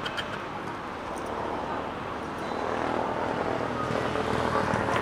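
Motorcycle engine running, with steady road noise, growing slightly louder about halfway through.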